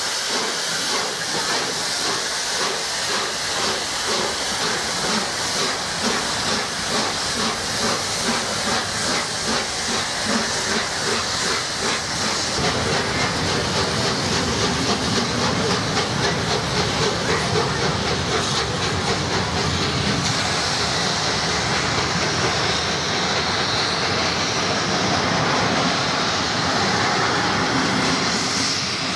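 Steam locomotive 60163 Tornado, a three-cylinder A1 Pacific, pulling away with a rapid rhythmic exhaust beat over a steady hiss of steam. About halfway through, a heavier continuous rumble of the train running on the rails comes to the fore.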